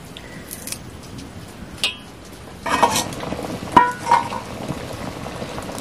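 Steel cookware being handled: a few sharp metal clinks and knocks, some with a short ring, and a brief clattering rattle about three seconds in.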